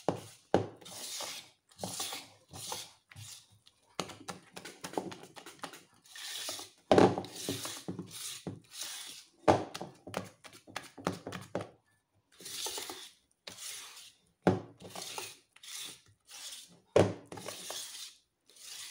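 Wire whisk beating thick chocolate cupcake batter in a bowl: quick, irregular strokes scraping and clicking against the bowl, with a few louder knocks and brief pauses.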